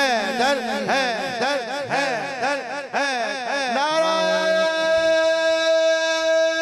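A man singing a wordless melodic run into a microphone, rapidly warbling up and down in ornamented turns. About four seconds in, he settles onto one long held note.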